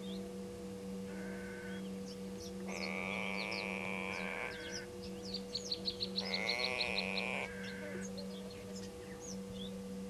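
Grey go-away-bird giving two drawn-out, nasal, bleating calls, each over a second long, the second accompanied by a quick run of high pulses. Smaller birds chirp throughout over a steady low hum.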